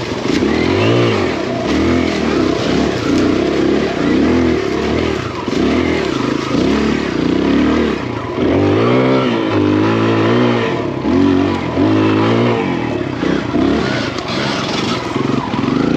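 Big-bore Kawasaki KLX140 dirt bike's single-cylinder four-stroke engine revving up and down in quick, repeated throttle blips as the bike is ridden slowly over rough ground, with a run of stronger revs about halfway through.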